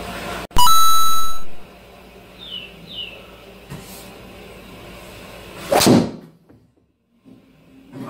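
A short electronic beep tone, cut in with a sharp click about half a second in, holds steady for about a second. About six seconds in comes one loud whack as a driver strikes a golf ball off the hitting mat.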